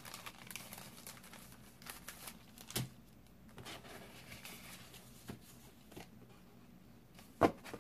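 Faint rustling and crinkling of clear plastic sleeves and paper sticker sheets being handled and shuffled, with scattered light clicks and a sharper tap near the end.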